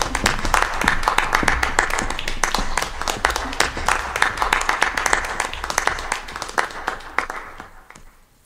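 Audience applause: many hands clapping together, dying away near the end.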